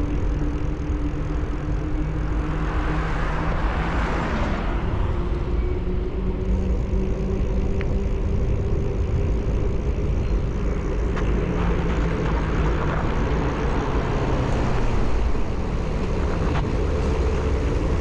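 Road traffic passing along a city street, heard from a moving bicycle: car engines humming and tyres on the road, with a swell as a vehicle goes by about three to five seconds in, over a steady low wind rumble on the microphone.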